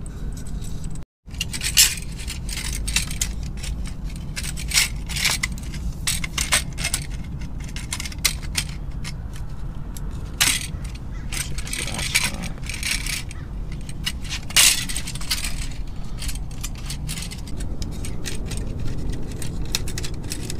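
Metal hose clamps clinking, rattling and scraping as they are handled and tightened around a carbon-fibre exhaust guard and a motorcycle's exhaust header pipe: irregular sharp metallic clicks and jingles.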